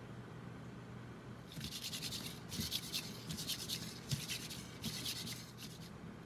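Repeated short bursts of scraping against metal cookware, with a few light knocks, as the last of the batter is scraped from a metal mixing bowl into an aluminium tube pan.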